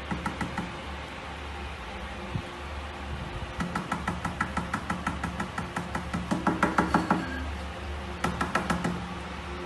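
Fingertips tapping quickly on a glass tabletop, in three runs of light knocks about six a second, each knock with a short glassy ring.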